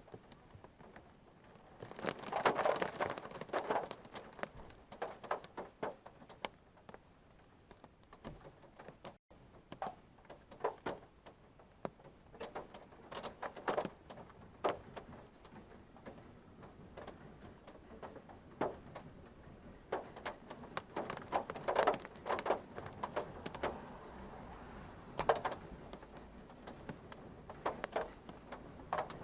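Rain falling on a parked car, heard from a dashcam inside it: irregular taps and knocks of drops and drips on the roof and windshield, heavier in a few clusters, over a low hiss.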